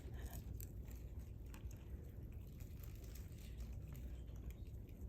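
Quiet room tone: a steady low hum with faint, scattered small clicks.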